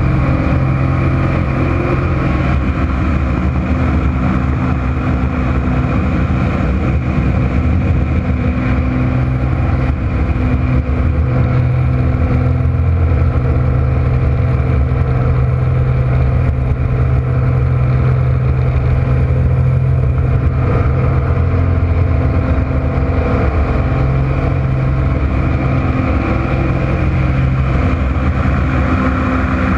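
Slick 540 aerobatic plane's piston engine and propeller heard from inside the cockpit, running loud and steady through aerobatic manoeuvres, the drone swelling and easing a little without changing pitch much.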